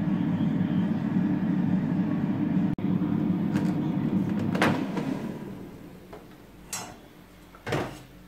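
Black+Decker air fryer's fan running with a steady low hum. About four and a half seconds in, the basket is pulled out by its handle with a click and the fan winds down, followed by two short knocks of the basket.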